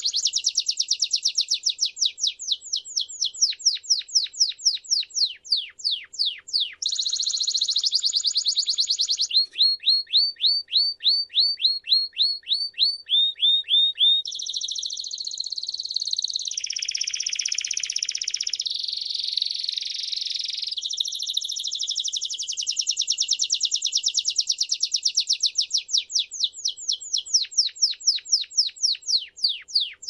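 A Timbrado canary singing a long, unbroken song of changing phrases: runs of quick, repeated falling notes, a faster rolling trill through the middle, then the notes spread out and fall more slowly near the end.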